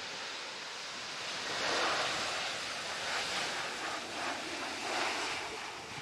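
Gusty wind rushing, swelling about two seconds in and then rising and falling.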